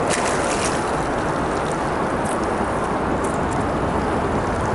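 Steady rushing noise of water and the boat, even and unbroken, with a few light metallic clicks in the first second.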